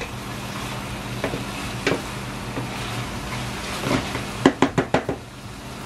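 Chicken breast pieces and mushrooms sizzling in a stainless steel pan while a wooden spoon stirs them, with scattered clicks of the spoon against the pan and a quick run of them about four and a half seconds in.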